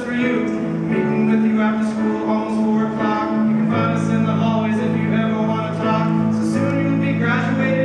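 A man singing a song into a microphone, amplified, over instrumental accompaniment with long held low notes.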